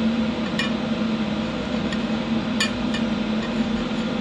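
Steady hiss of a small HHO (hydrogen-oxygen) torch flame over a constant low hum, with two light metallic clinks, about half a second and two and a half seconds in.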